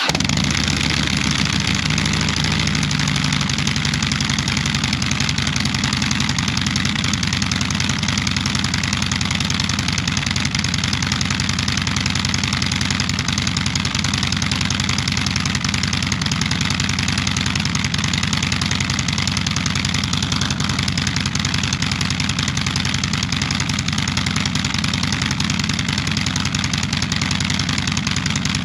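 2016 Harley-Davidson Street Glide's Twin Cam 103 V-twin idling steadily through a two-into-two exhaust with Rinehart slip-on mufflers fitted with quiet baffles. The engine has just started: the idle sits slightly higher for the first few seconds, then settles.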